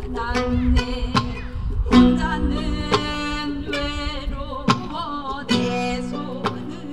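Live flamenco–Korean traditional crossover music: a singing voice with wavering pitch over guitar accompaniment, punctuated by sharp percussive hits.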